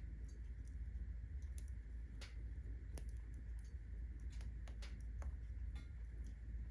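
Firewood burning in a fireplace, crackling with irregular sharp pops over a low, steady rumble.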